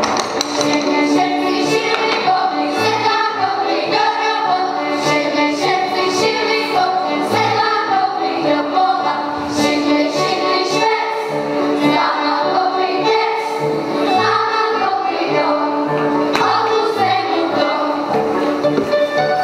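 Children singing a folk song together in chorus, accompanied by a live folk band of strings with a steady bass beat.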